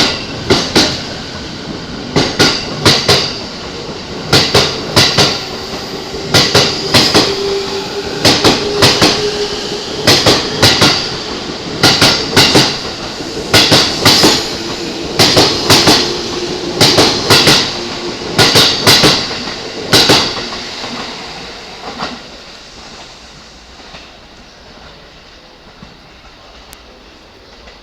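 Electric multiple-unit train passing, its wheels clacking over rail joints in quick groups of two or three for about twenty seconds over a faint steady hum. The clacking stops and the sound dies away in the last few seconds.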